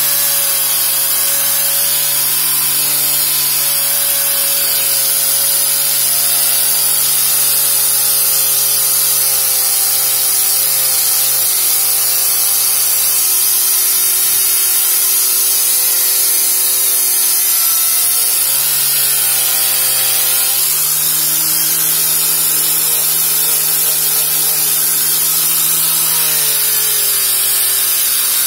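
Electric angle grinder fitted with a cloth buffing pad, running steadily while it buffs a chrome motorcycle muffler with metal polish. Its motor whine dips in pitch for a couple of seconds about two-thirds of the way through, then recovers, and sags again briefly near the end.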